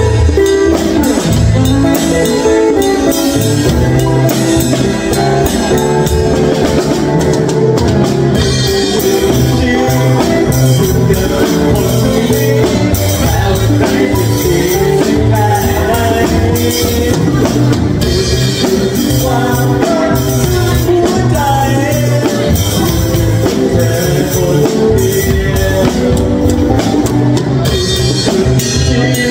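A live band playing a song: a drum kit beating steadily with cymbals, a guitar, and a voice singing over them.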